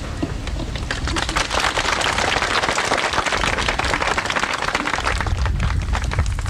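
Crowd applauding: dense clapping that swells about a second in and keeps up steadily.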